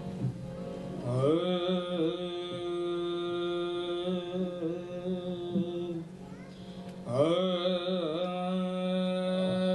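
Shabad kirtan: a voice singing long held, slightly wavering notes over a steady harmonium drone. The sung phrase starts about a second in, breaks off around six seconds, and starts again about a second later.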